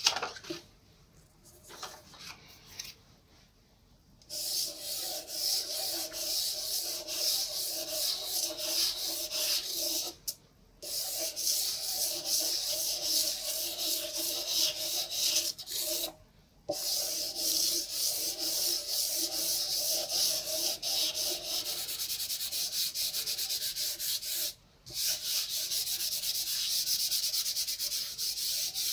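Soft pastel stick scraped rapidly back and forth across paper, a dry rasping scratch of quick strokes that starts about four seconds in and breaks off briefly three times. A single sharp tap comes at the very start.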